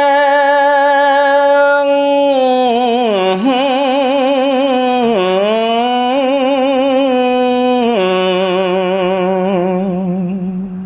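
A male Buddhist monk's lone voice chanting Khmer smot, drawing out one long melismatic phrase. It opens on a plain held note, then moves into long notes with heavy wavering vibrato that slide down in pitch several times, and settles on a low held note near the end.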